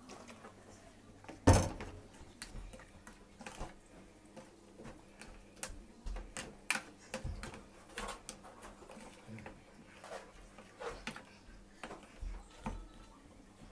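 Silicone spatula stirring and scraping a soy-sauce marinade in a clear dish, making irregular light taps and clicks against the dish. A single sharp knock about one and a half seconds in.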